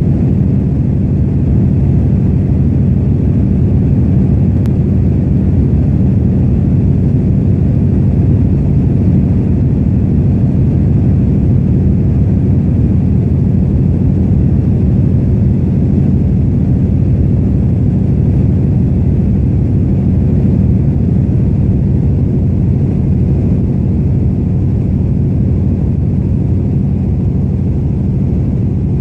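Antonov An-2's nine-cylinder radial engine droning steadily in cruising flight, heard from inside the cabin. It is a loud, even, low drone with no change in power.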